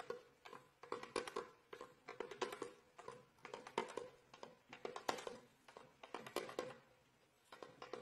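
Clusters of light, quick taps on a small toy drum's skin head, with a short ring after each, coming about every second and a quarter and pausing briefly near the end.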